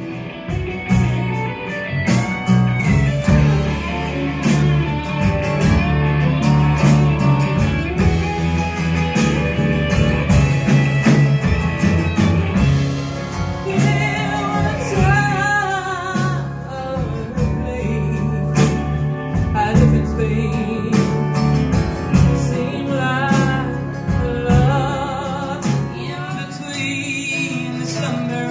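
A live band playing a song, heard from the audience: drum kit keeping a steady beat under bass, electric and acoustic guitars, with a woman singing lead, her voice standing out most in the second half.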